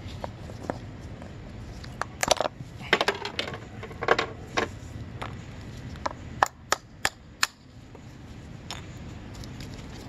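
Clicks and light knocks of metal spacers against a plastic snowmobile bogie wheel's hub as the wheel is handled and turned by hand to check its bearings. The bearings sound fine, with no grinding. The clicks come in a cluster in the first half, then four sharp clicks close together about two-thirds of the way in, over a steady low hum.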